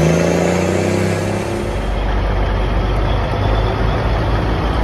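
Diesel engine of a cabover semi truck revving, its pitch rising slightly before fading. About two seconds in, a Kenworth cabover tractor's diesel engine is heard as it drives past, a deeper steady sound.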